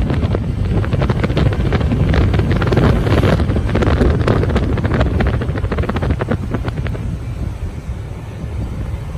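Wind buffeting the microphone over the engine and road rumble of an open vehicle riding along a road. It grows somewhat quieter over the last couple of seconds.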